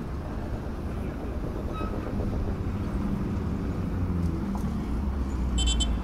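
Vehicle engines and traffic rumbling on a dirt road, a low engine sound growing steadily louder as traffic approaches. Near the end there is a brief high-pitched toot.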